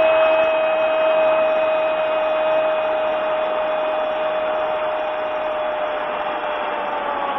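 A football commentator's long, drawn-out shout of "gol" held on one steady pitch, sagging as his breath runs out near the end, over the steady noise of a cheering stadium crowd.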